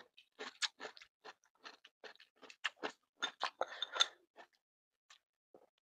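A person chewing a mouthful of food close to the microphone: a string of small, irregular crunches and mouth clicks, thickest about three to four seconds in.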